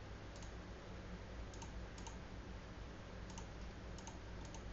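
Computer mouse clicking, about six quick press-and-release clicks spread irregularly, over a steady low hum.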